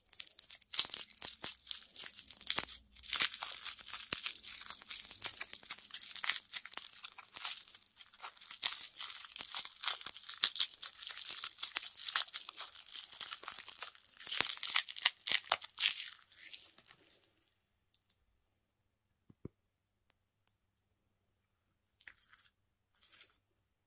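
Crinkly candy wrapper being torn and peeled off a small lollipop by hand, a dense crackling rustle that goes on for about seventeen seconds. After it stop, there is a single tap and a couple of brief crinkles near the end.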